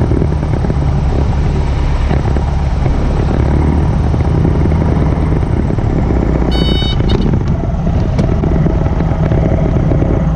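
Piper Cherokee's engine idling with the propeller turning, heard inside the cabin as the plane rolls out after landing. A short high beep sounds about two-thirds of the way through.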